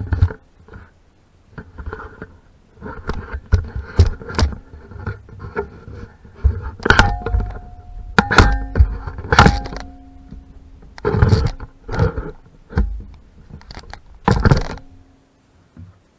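Metal tools and parts being handled on a workbench: irregular clanks, knocks and scrapes, a few of them ringing briefly.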